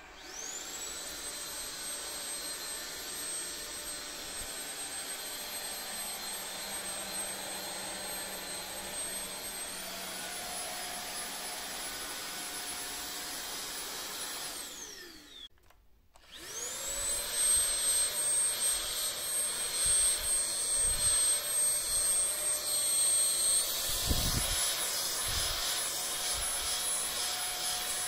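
Deenkee cordless stick vacuum's motor spinning up to a steady high whine, then stepping up in pitch about ten seconds in as it goes to its higher turbo setting. It winds down and stops, starts again louder, and steps up once more near the end, with a few low thumps as the nozzle is worked.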